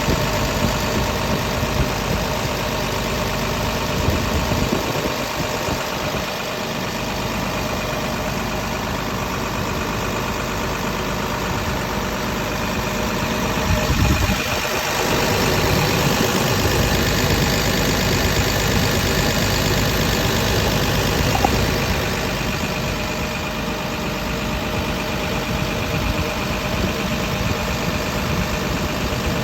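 Komatsu PC210-10 hydraulic excavator's diesel engine running steadily at idle, growing somewhat louder for several seconds around the middle.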